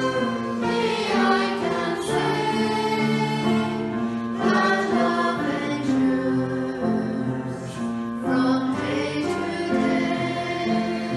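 A choir singing a hymn in held notes of several parts.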